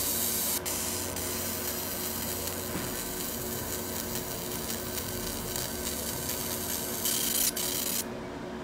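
Steady background hiss with a faint low hum, no distinct events; the hiss drops off sharply near the end.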